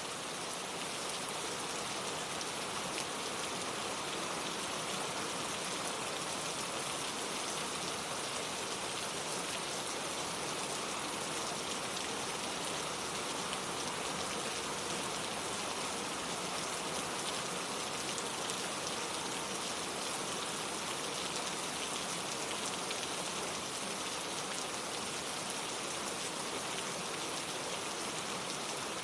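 Steady, heavy rainfall: a dense, even patter of raindrops on surfaces, fading in at the very start and then holding level.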